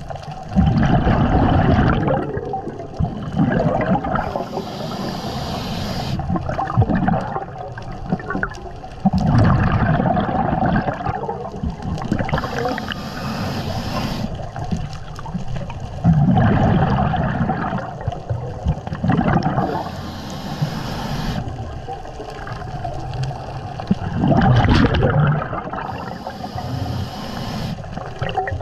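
Scuba diver breathing through a regulator underwater: a hiss on each inhale alternates with a bubbling gurgle of exhaled bubbles, about one breath every seven to eight seconds, four breaths in all.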